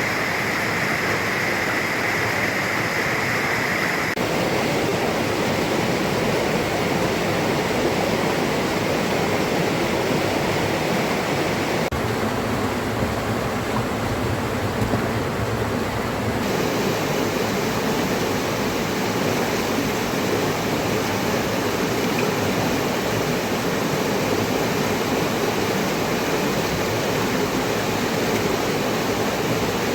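Steady, even rush of water: heavy rain and flowing river water blending into one dense noise, its texture changing abruptly a few times.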